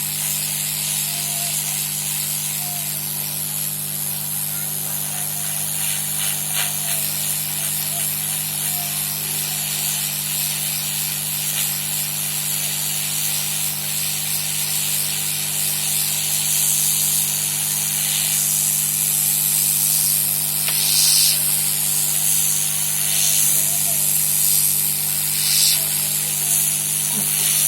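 Hot air rework blower running at full heat and full air, a steady airy hiss over a low hum, heating flux paste around a motherboard chip to reflow it.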